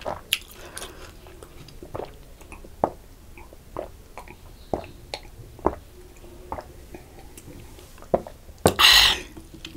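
A person gulping down a glass of cold buttermilk, one swallow about every second, then a loud breathy exhale near the end.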